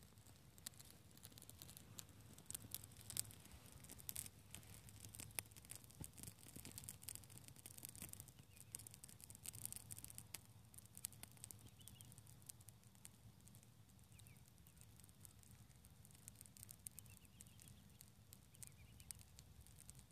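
Faint crackling and popping of a small wood fire burning on sand, thickest in the first half, over a low steady rumble. A few faint high chirps come in the second half.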